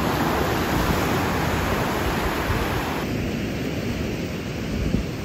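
Surf on a Lake Michigan beach: a steady wash of breaking waves, with wind rumbling on the microphone. About three seconds in, the sound becomes duller and thinner in the highs.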